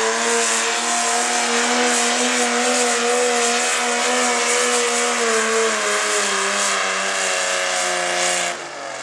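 Naturally aspirated pulling tractor's engine running flat out under load as it drags the sled, with a steady high pitch that sags slightly partway through as it bogs down. Near the end the throttle comes off and the pitch drops away quickly.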